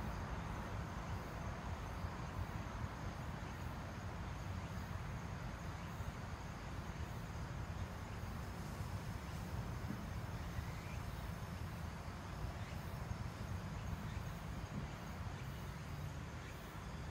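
Steady outdoor background: a low rumble with a faint, steady high insect drone above it, and no distinct events.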